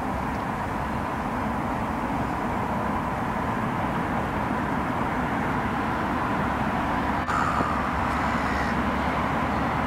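Steady outdoor background rumble of distant road traffic. A bird calls briefly about three-quarters of the way through.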